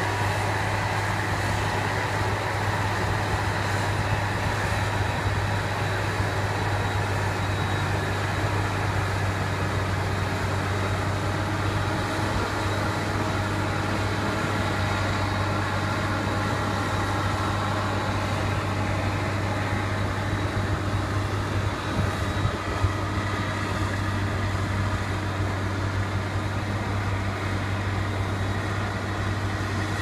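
Claas Jaguar self-propelled forage harvester chopping standing corn for silage: a steady mechanical drone with a steady high whine, unchanging throughout.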